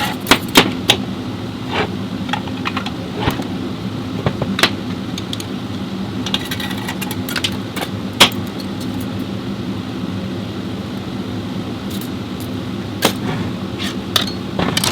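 Sharp metallic clinks and knocks of tools and transmission parts being handled during teardown, scattered irregularly, with the loudest single knock about eight seconds in, over a steady low machine hum.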